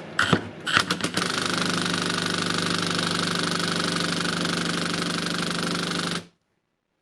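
A few sharp clicks, then an electric drill motor running steadily at constant speed for about five seconds before cutting off abruptly.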